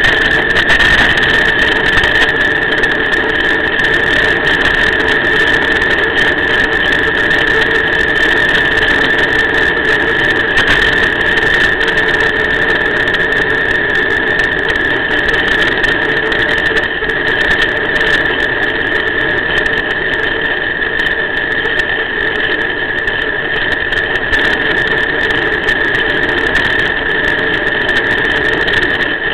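A loud, steady high-pitched whine that holds one pitch throughout, with a lower steady hum beneath it and a hiss of noise.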